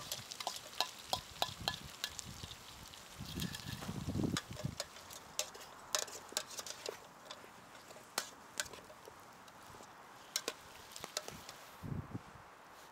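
Wood campfire crackling with irregular sharp pops, along with a spoon stirring and knocking in a metal pot hung over the fire. The pops thin out near the end, where there is a soft knock.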